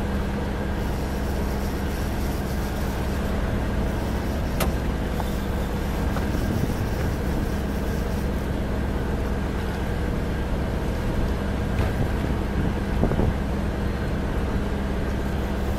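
Boat engine running steadily with a low, even hum, and a few faint clicks.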